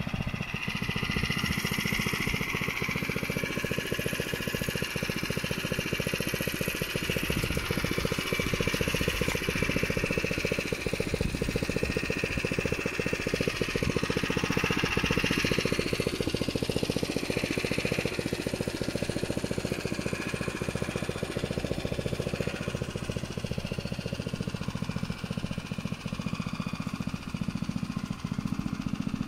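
Hammerhead Torpedo buggy's 136cc LCT single-cylinder engine idling steadily, a rapid even putter.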